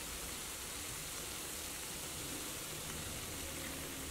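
Tomato-onion masala and oil frying in a stainless steel pan: a steady, even sizzling hiss.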